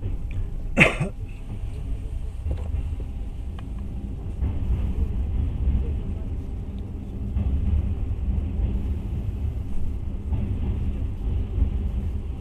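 Passenger train running, a steady low rumble heard from inside the carriage, with one sharp clack about a second in. The rumble gets louder from about four and a half seconds in, as the train runs onto a steel truss bridge.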